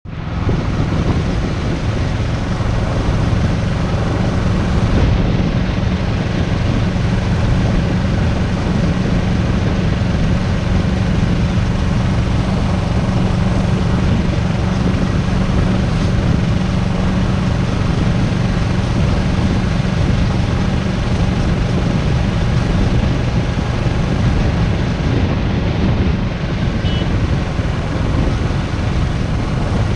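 Motorcycle riding at a steady speed: a steady low engine hum under wind rushing over the camera microphone.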